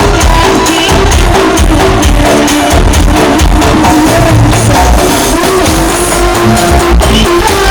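Loud music with a heavy, pulsing bass beat and a melody, played through a large outdoor PA sound system being tested in a sound check.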